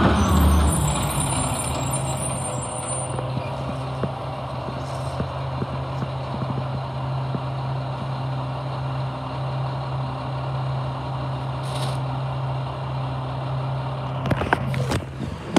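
Yard waste garbage truck pulling up, then its diesel engine idling with a steady low hum while it stands. Near the end there are a few sharp clicks and rustles.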